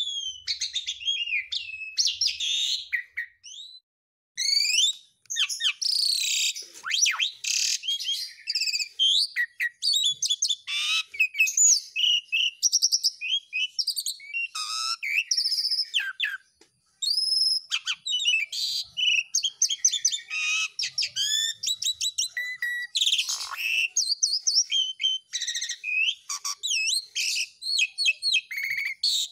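Pied starling (jalak suren) singing in full song: a fast, varied run of whistles, chirps and rough chattering notes. There are short pauses about four and sixteen seconds in.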